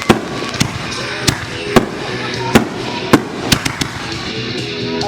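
Consumer fireworks going off: about ten sharp bangs at uneven intervals, roughly two a second, over a steady background crackle.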